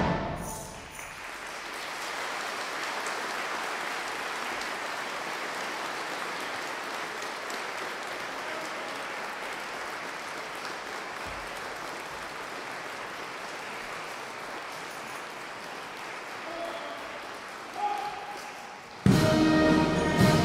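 Audience applauding steadily, the clapping slowly fading. About a second before the end, a brass band with drums starts playing.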